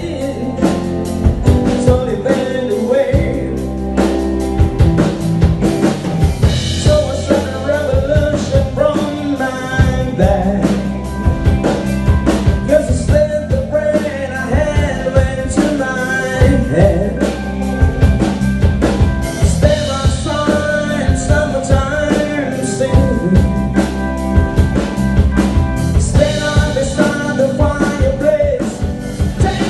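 Live rock band playing: a male singer over electric guitar, bass guitar, keyboard and drums.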